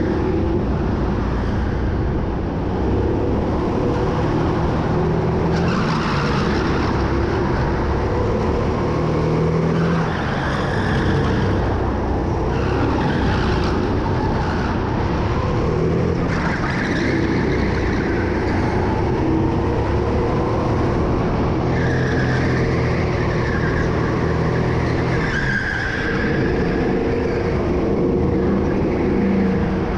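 Go-kart engine running hard during a race, its note rising and falling repeatedly as the kart accelerates and slows.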